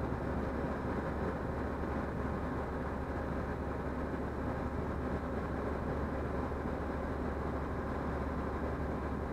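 Cummins 8.3 diesel engine idling steadily, heard from inside the motorhome cab as an even low hum, while its air compressor builds brake air pressure.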